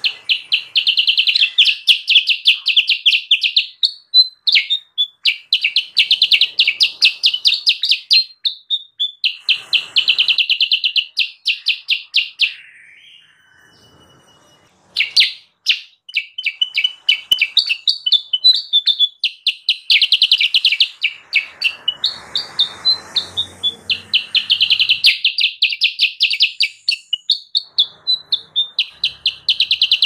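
Kutilang sutra, a bulbul, singing loudly in rapid chattering runs of repeated high notes, bursts of a few seconds each, with a short pause about halfway through.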